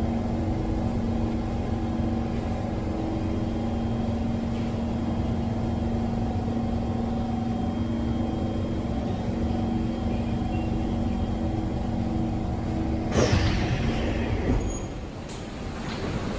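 SMRT C151 electric train running with its chopper control giving a steady multi-tone whine over the rolling noise. About thirteen seconds in, a sudden louder burst with falling tones, after which the whine stops and the running noise gets quieter.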